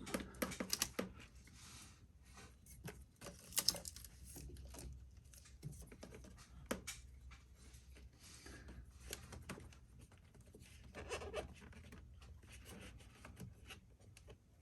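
Faint, scattered clicks, taps and light scraping of engine parts being handled and fitted together by hand.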